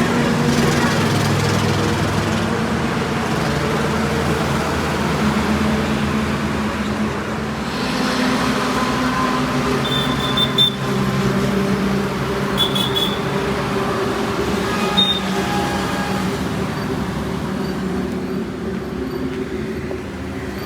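Highway traffic running past: a steady wash of vehicle engines and tyres with engine hum rising and falling as vehicles pass. Three short high-pitched beeps sound about halfway through.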